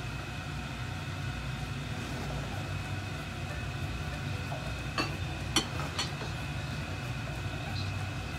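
Steady low hum from the stovetop as a covered stainless-steel pot of beef soup heats toward the boil, with a faint high steady tone and three sharp ticks about five to six seconds in.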